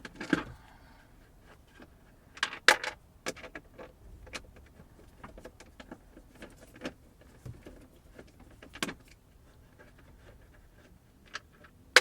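Scattered clicks, taps and small rattles of a Phillips screwdriver backing out screws and a broken plastic console-door latch being worked loose. The sharpest knocks come near the start and again about 2.5 to 3 seconds in.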